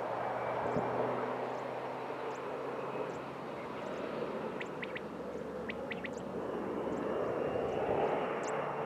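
Air Tractor AT-602 crop-spraying aircraft's Pratt & Whitney PT6A-60AG turboprop engine and propeller, a steady rushing drone with a low hum and a high whine that swells and fades: louder at the start, dipping in the middle, rising again near the end.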